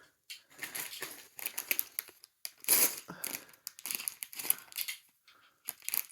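A bag rustling and crinkling in irregular bursts as someone rummages through it by hand.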